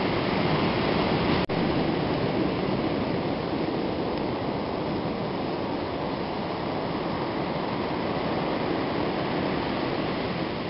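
Steady wash of ocean surf on the beach, an even noise with no pauses, broken once by a brief dropout about a second and a half in.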